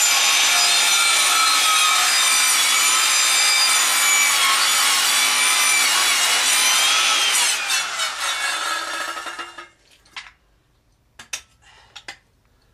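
Handheld circular saw (skill saw) running and cutting through a wooden stake: a loud steady whine with the rasp of the cut, then the blade winding down with a falling pitch between about seven and ten seconds in. A few light knocks follow near the end.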